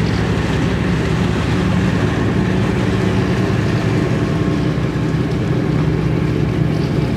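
Car ferry's engines running steadily as it lies at the loading ramp: a low drone under an even rush of noise.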